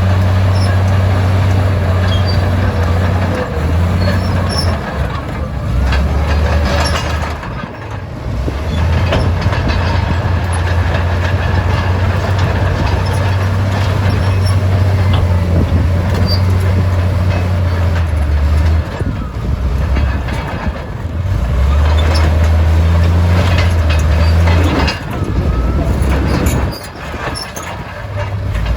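Komatsu D68E bulldozer's diesel engine running hard, with scattered metallic clanks; the engine note drops briefly twice, about a third of the way in and near the end.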